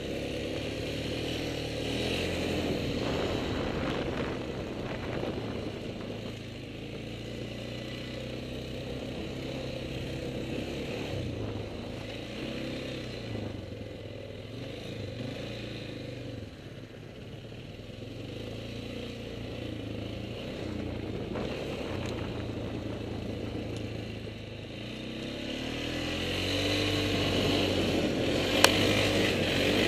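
ATV engine running under changing throttle while being ridden over trails, its pitch rising and falling with speed. It gets louder over the last few seconds, with a single sharp click near the end.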